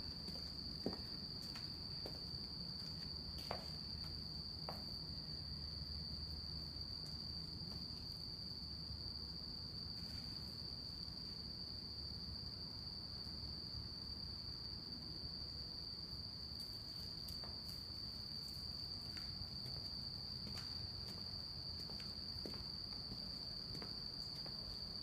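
Night insects trilling as one steady, unbroken high-pitched tone, over a faint low rumble, with a few faint taps in the first five seconds.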